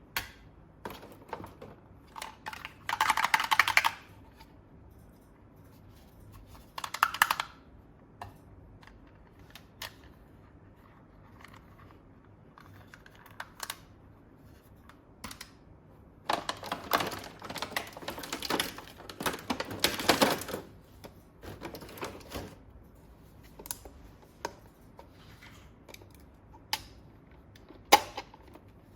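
Small plastic toy parts being handled: scattered clicks and taps, with a few longer bursts of rustling and scraping, the longest in the middle.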